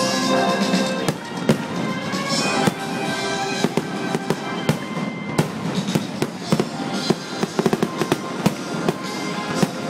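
Fireworks going off in quick succession, many sharp bangs and crackles, coming thicker in the second half. Music with held notes plays under them.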